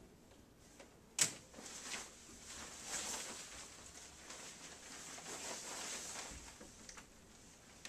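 Fabric rustling as a jacket is swung on and pulled over the shoulders, after a single sharp click about a second in.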